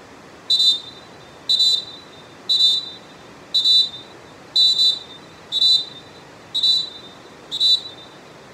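Molten Dolfin Pro pealess referee whistle blown in eight short, sharp blasts, about one a second, each a high, steady shrill tone.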